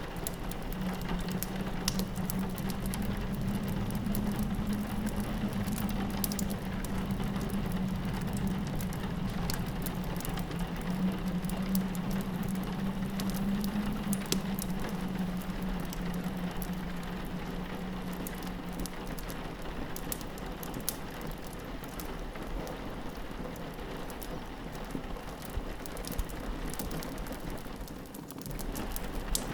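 Rain pattering on a window, mixed with a wood fire crackling in a fireplace, the crackles heard as scattered small snaps. A low steady drone runs under it for the first two-thirds and then fades.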